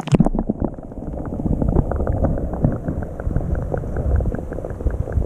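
A splash as a camera plunges into lake water, then muffled underwater gurgling and bubbling with many small clicks and knocks, dull and with the high end cut off.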